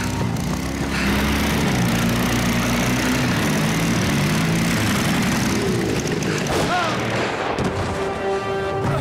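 Motorcycle-with-sidecar engine running, mixed with film music.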